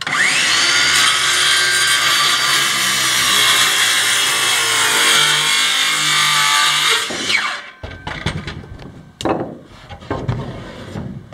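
Small cordless circular saw starting up and cutting through a wooden floorboard for about seven seconds, then winding down. After it, a series of wooden knocks and clatters.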